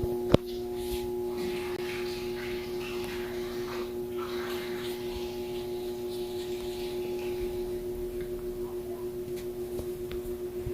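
Sky Power 40 cm pedestal fan running at its lowest speed, set with a dimmer: a steady electric motor hum with a slight regular pulsing. There is a single sharp click shortly after the start.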